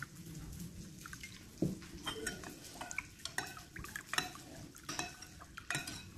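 A spoon stirring a pot of fish-sauce dipping sauce, clinking lightly and irregularly against the pot's side.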